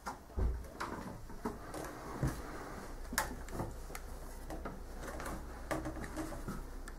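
Scattered knocks, clicks and creaks of someone climbing a wooden ladder into a cabin loft, with a heavy thump about half a second in and a low rumble underneath from about three seconds on.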